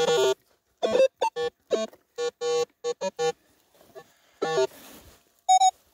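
Metal detector sounding a series of short electronic beeps as its coil is passed over a buried metal target, mostly at one pitch, with a higher, purer beep near the end.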